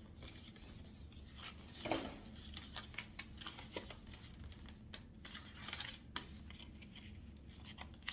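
Clothing packaging being opened by hand: scattered rustling, crinkling and tearing sounds, with small clicks and a few louder bursts.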